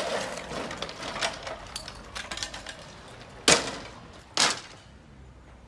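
Knocks and clatter of tornado-wrecked wooden roof timbers being handled, with scattered small clicks and two louder knocks about a second apart past the middle.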